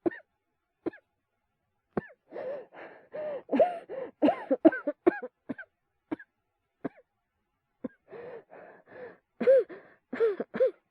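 Acted, harsh voiced coughing from one person. It comes in two rapid fits, one about two seconds in and one near the end, with a few single coughs between them.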